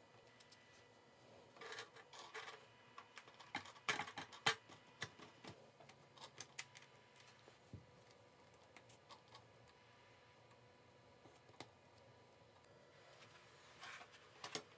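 Faint clicks and taps of small plastic model-plane wheel parts being handled and pressed together by hand, mostly in the first half, with a few more near the end.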